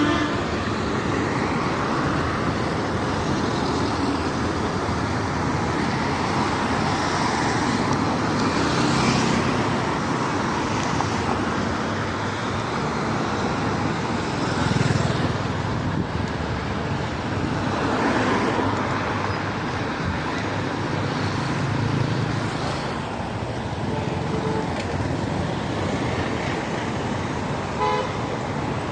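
Steady road traffic noise with vehicles passing, swelling now and then. A car horn gives a short toot near the end.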